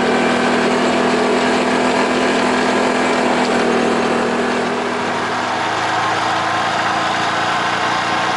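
Off-road vehicle's engine running steadily while driving on a gravel road, with road noise under it. A little past halfway the engine note changes to a lower, slightly quieter run.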